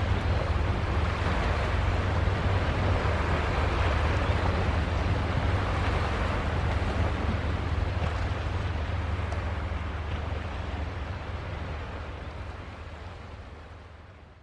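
Steady low rumble of a passing vehicle carrier ship's engine, with a wash of waves and wind noise over it; it all fades out over the last few seconds.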